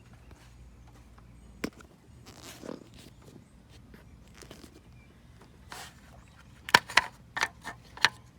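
Hands working in an engine bay: a single sharp click about a second and a half in, then a quick run of sharp clicks and knocks near the end, the loudest sounds here.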